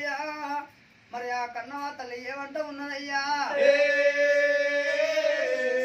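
A man's voice singing an Oggu Katha verse in Telugu, in short chanted phrases with a brief pause about a second in, then swooping up into one long held note for the last two seconds.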